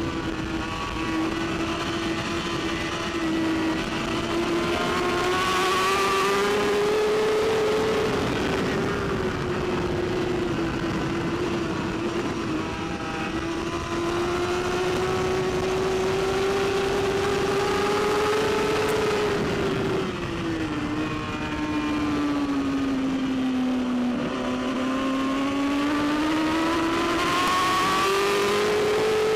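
BMW S1000RR superbike's inline-four engine at racing speed, heard onboard, its pitch climbing and falling as the rider accelerates, shifts and brakes. The deepest drop comes about two-thirds of the way through, followed by a long rising climb and a sudden step up in pitch near the end.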